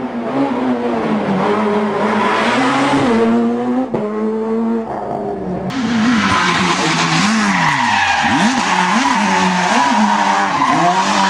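Rally car engine revving hard under a hiss of tyre and road noise, its pitch climbing and stepping through gear changes; about halfway through the sound changes and the revs swoop rapidly up and down again and again.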